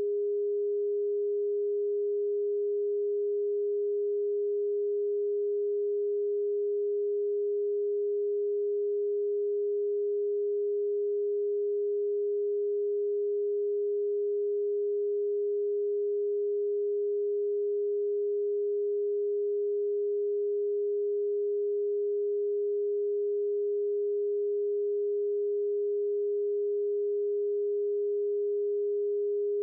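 A single pure sine tone at a steady, fairly low pitch, generated electronically as a Rife frequency. It holds unchanged at one pitch and level throughout, with no other sound.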